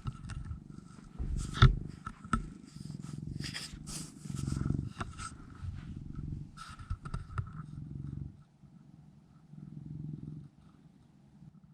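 Domestic cat purring close up, the low rumble coming in pulses with its breaths and fading off near the end, with a few sharp clicks and knocks in between.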